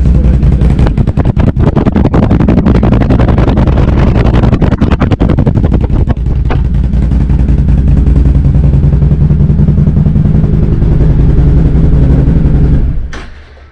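Can-Am Outlander 1000's V-twin engine running loud through an RJWC aftermarket exhaust with no silencer insert fitted, very loud and deep. For the first several seconds it gives a rapid rattle of sharp exhaust pulses, then settles to a steadier run, and it is switched off near the end.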